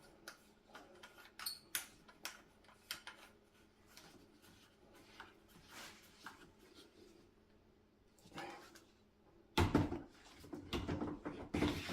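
Faint clicks and rubbing of plastic parts as a pressure washer's high-pressure hose fitting is pushed into the spray gun and screwed on by hand, with a louder clatter of handling about ten seconds in.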